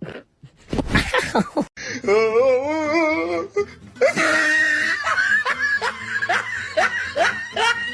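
A person laughing hard in a run of short rising bursts over music, after a few sharp knocks in the first two seconds.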